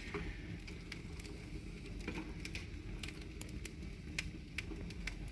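Open wood fire of vine stocks crackling in a fireplace, with irregular sharp pops and snaps over a steady low rush.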